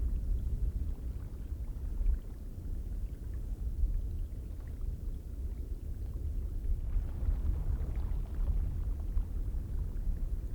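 Icelandic geyser ambience: a steady low rumble of churning water and steam, with faint splashes flecking through it.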